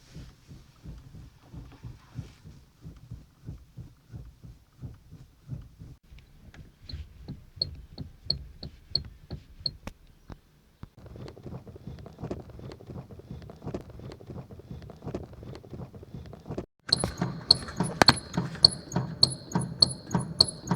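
Steering-system noise on a third-generation GM F-body (Camaro/Firebird): a steady run of clicks and knocks, with a short high squeak on many of them. There is a brief break about three-quarters of the way through, and after it the knocking and squeaking are louder.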